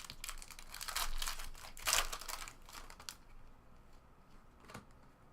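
Foil trading-card pack wrapper crinkling and rustling as it is handled and torn, mostly in the first three seconds, then a few faint rustles.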